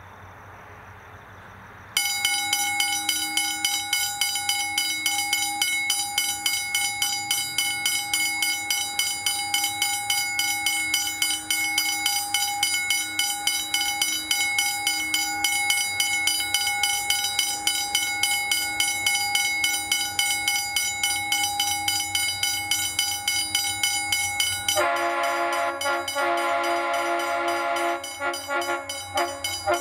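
Level-crossing warning bell starting up about two seconds in and ringing rapidly and steadily: the crossing has been activated by an approaching train. Near the end a train horn sounds for about three seconds over the bell.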